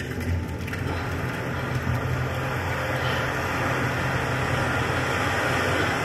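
A steady hissing noise that starts abruptly and grows brighter about three seconds in, over a low steady hum.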